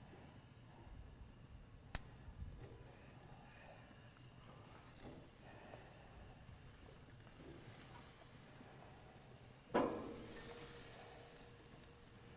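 Faint sizzling on a gas grill as cauliflower florets are set down on the grate. There is a sharp click about two seconds in, and a louder knock near the end followed by a short hiss.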